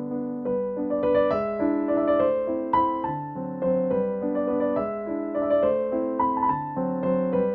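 Background music: a gentle piano piece with a melody moving over held chords.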